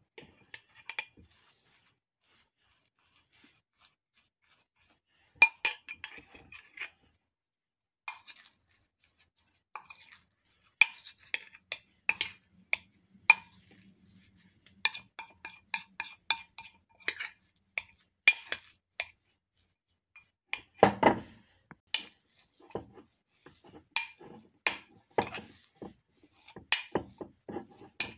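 Metal spoon stirring flour and sourdough starter in a bowl: irregular clinks and scrapes of the spoon against the bowl, coming in quick runs from a few seconds in. There is a dull knock about three-quarters of the way through.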